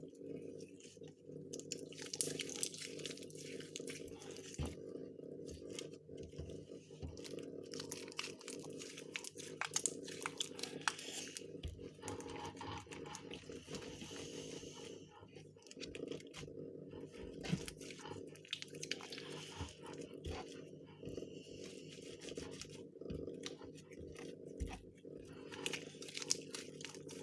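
Hands kneading and squishing homemade laundry-detergent slime: a steady run of sticky, irregular crackling and squelching, over a steady low hum.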